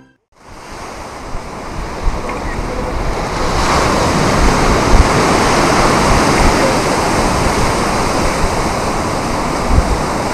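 Sea surf on a beach as a steady, loud rush, mixed with wind buffeting the microphone. It comes in just after the start and grows louder about three and a half seconds in.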